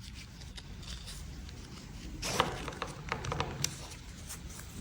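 Faint handling noise of a wristband being slid back onto a small plastic remote control: light rustling with a few small clicks, mostly from about two seconds in.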